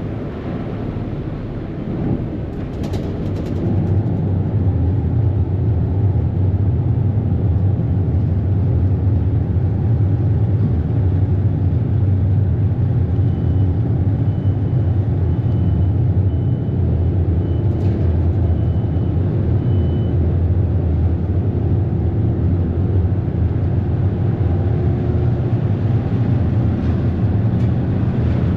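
A ferry's engines running as a steady low drone, growing louder a few seconds in as the boat pulls away from the wharf and gets under way. In the middle, a faint series of short high beeps sounds about once a second.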